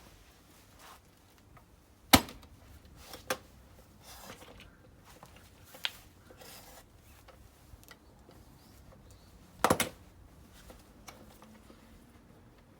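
Wooden parts and tools being handled on a bench: a few sharp knocks, the loudest about two seconds in, and a quick double knock near ten seconds.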